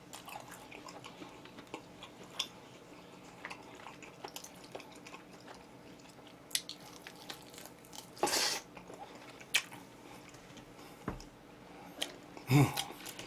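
Close-up eating sounds of oven-roasted chicken being bitten and chewed: quiet, with scattered small wet clicks, a louder noisy burst about eight seconds in and a sharp click a second later.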